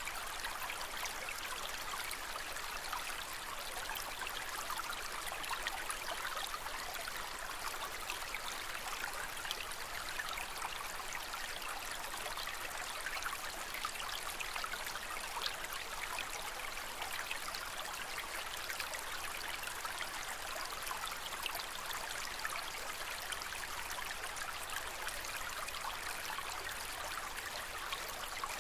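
Aquarium water trickling and splashing steadily: an even rush of moving water with many small, constant splashes.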